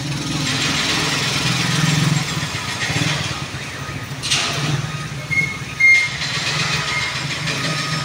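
An engine running with a steady, pulsing low hum under a hiss of street traffic, with a sharp noise about four seconds in and a few short high beeps a little past halfway.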